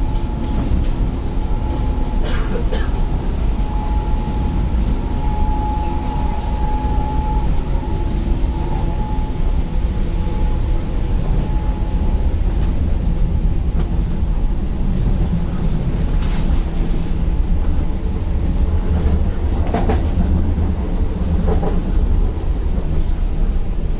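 Interior running noise of a moving class 36WEd electric multiple unit: a steady low rumble from the wheels and running gear, with a steady high whine that is strongest a few seconds in, and a few brief knocks.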